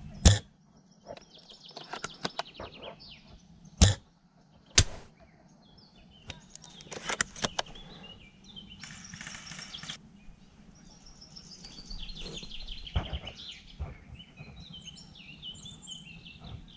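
Small birds singing in quick bursts of chirps, again and again, with a few sharp clicks or knocks in between, the loudest just after the start and at about four and five seconds in.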